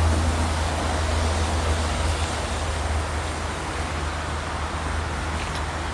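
Steady outdoor background noise: a deep, constant low rumble under an even hiss, with no voices.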